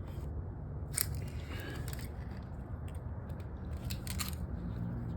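Recoil pull-starter of a Hart 3600-watt gas generator being yanked twice, two short raspy pulls about three seconds apart, over a steady low rumble. The engine does not catch: a failed start.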